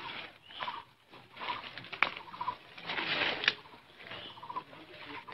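A bird calling over and over with short chirps, about one a second. Rustling and a few sharp clicks come in the middle, the loudest part about three seconds in.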